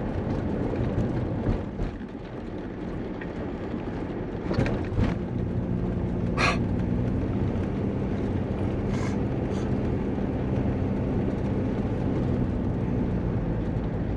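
Vehicle engine and road noise heard from inside the cab while driving, with a few sharp knocks or rattles around five and six and a half seconds in; after that a steady engine hum holds.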